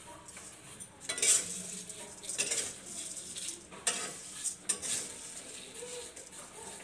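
A spatula scraping and stirring vermicelli as it roasts in fat in a steel wok, in irregular strokes about once a second, with a light sizzle underneath.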